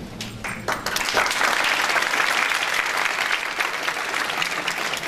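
Audience applauding, the clapping swelling about a second in and thinning out toward the end.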